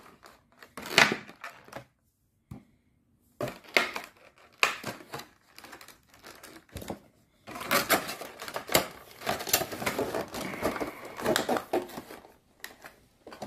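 Irregular clicks, taps and rustling of things being handled on a desk, with a short break about two seconds in and a busier stretch of clattering and crinkling in the second half.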